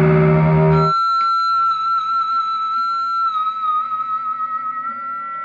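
Morris Hurricane Stratocaster-style electric guitar through distortion: a loud held chord is cut off about a second in, leaving a single high note that sustains with a wavering vibrato and slowly fades.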